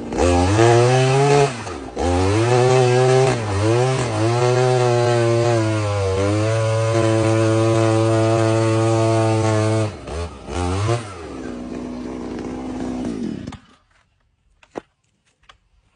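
Two-stroke petrol engine of a Kamatsus KM 44 earth auger revving up and down several times, held at high revs for a few seconds, then dropping to idle and cutting off about three quarters of the way through. A few faint clicks follow.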